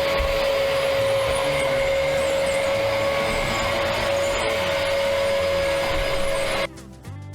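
Vacuum cleaner running steadily with a constant motor whine over its airflow noise, cutting off suddenly near the end.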